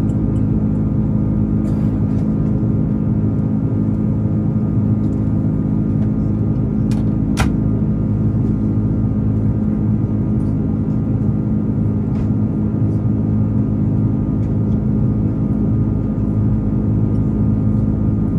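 Airliner cabin noise from an Airbus A330 climbing out after take-off: a loud, steady drone of engines and airflow with several constant hums. A single short click sounds about seven seconds in.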